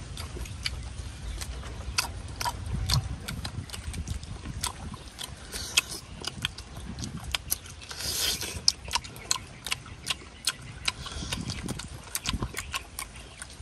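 Wet chewing, lip-smacking and tearing of roast duck meat eaten by hand by two people: irregular sharp clicks and smacks, with a brief rushing noise about eight seconds in.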